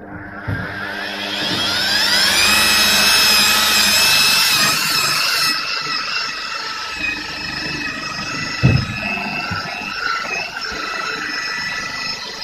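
Electric rotary polisher with a wool buffing pad starting up, its whine rising as it spins up, then running steadily while buffing a glider's fuselage, the pitch wavering slightly as the pad is worked. A short thump about two-thirds of the way through.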